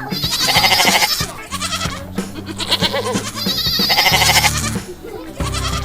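Goats bleating again and again, several loud, quavering calls about a second long each. The goats are crowding for feed and seem very hungry.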